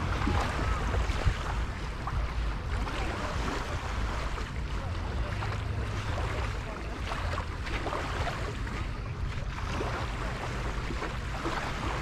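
Wind buffeting the microphone, a steady low rumble, over the wash of small waves along the shore.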